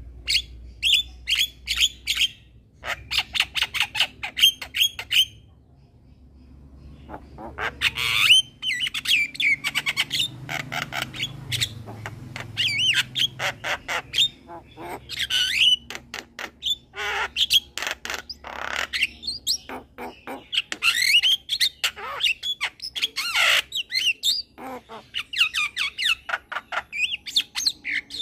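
A young male Javan myna sings in rapid runs of sharp clicking and chattering notes mixed with harsh squawks and short whistled phrases. There is a brief pause about five seconds in.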